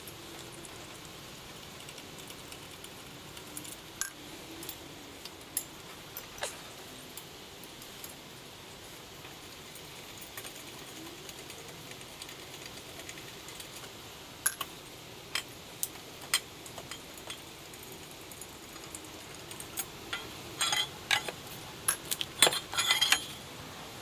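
Metal hand tools and engine parts clinking and tapping while pipes and fittings are unbolted around a turbo: scattered light clicks, with a quicker run of clinks a few seconds before the end.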